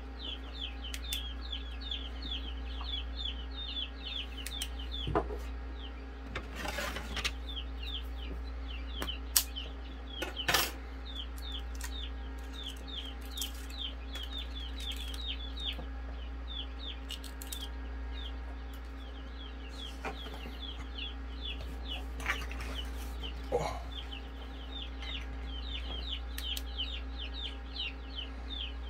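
Newly hatched chicks peeping without pause, several short downward peeps a second. Occasional sharp clicks and taps come as an unhatched chicken egg's shell is picked apart by hand.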